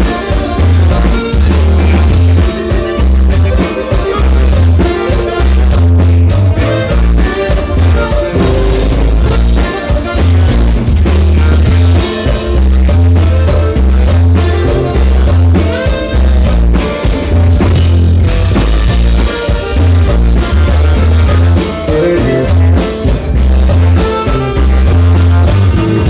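Loud band music for dancing, with a strong pulsing bass line, drums and melody instruments keeping a steady beat.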